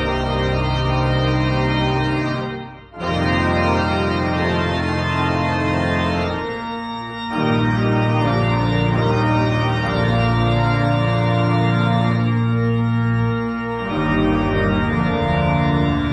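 Small wooden chamber organ playing a slow hymn in held chords, the chords changing every few seconds, with a short break between phrases about three seconds in.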